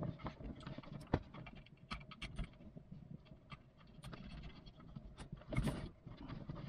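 Faint, irregular clicks and rustles of a MoFi 4500 cellular modem-router and its sleeved antenna cables being handled and connected, with one sharp click about a second in and a louder rustle near the end.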